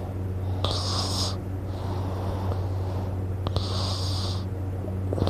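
A sleeping person breathing noisily: two hissing breaths about three seconds apart, over a steady low hum.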